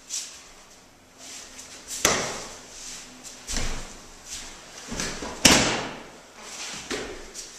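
Thuds and slaps of a body hitting a padded mat as an aikido partner is thrown and takes breakfalls, with the rustle of cotton uniforms; the loudest slap comes about five and a half seconds in.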